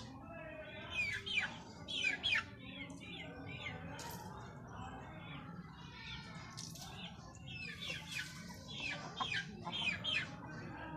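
Birds calling in a mix of short squawks, clucks and chirps, repeated many times with louder clusters about a second in, around four seconds, and again near the end.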